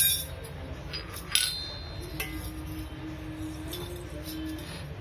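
Stainless steel utensils, a tumbler and spoon, clinking on a marble floor as a toddler handles them: a clink at the start, a louder ringing clink about a second and a half in, and a lighter tap a little after two seconds.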